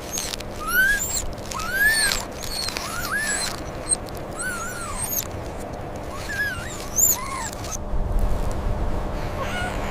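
Newborn puppies whimpering: a string of short, high squeaks that rise and fall in pitch, about eight in all, with a gap a little past the middle.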